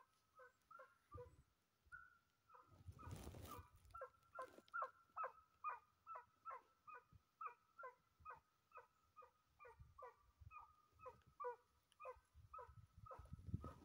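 Faint hunting dog barking in a long, even run of about two to three barks a second, typical of a hound giving tongue while on game. A short rush of wind or handling noise comes about three seconds in.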